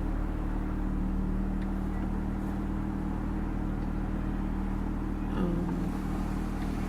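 Car engine running with a steady low hum, heard from inside the car's cabin.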